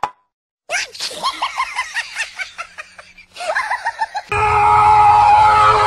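Laughter in quick repeated bursts, then from about four seconds in a louder held note of music that continues to the end.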